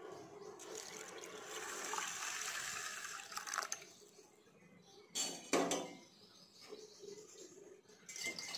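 Water poured into a steel pot of rice and dal, a steady splashing pour for about three seconds, followed by two brief louder sounds about five seconds in.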